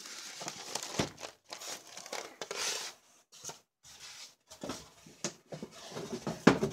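Clear plastic wrapping bag crinkling and rustling as the machine inside it is handled, in irregular bursts with a few brief silent gaps.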